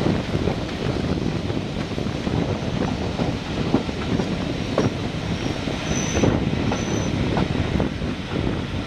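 Passenger train coaches running slowly into a station, wheels clicking irregularly over the rail joints. Two short high wheel squeals come about six and seven seconds in.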